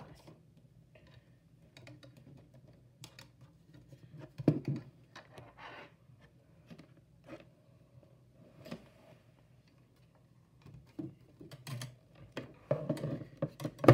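Scattered clicks, taps and knocks of a plastic weather radio being handled and shifted on a desk. A louder knock comes about four and a half seconds in, and a quick run of knocks near the end as the radio is lifted and moved.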